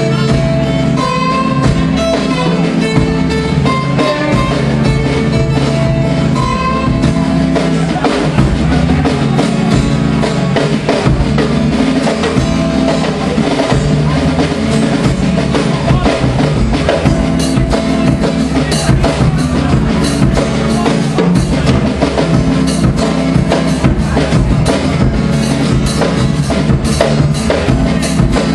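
Acoustic guitar and drum kit playing an instrumental passage live. The drumming grows busier about eight seconds in and heavier again in the second half.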